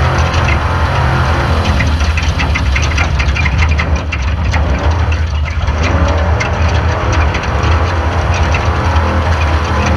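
Off-road race car's engine running steadily, with quick rattling and clatter over it.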